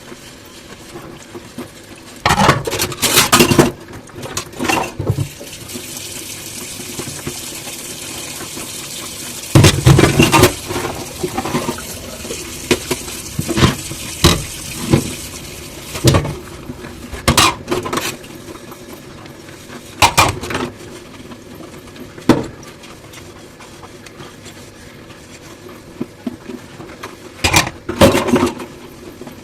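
Dishes being hand-washed at a sink: tap water runs for about ten seconds in the middle, and dishes clink and knock against each other at intervals throughout.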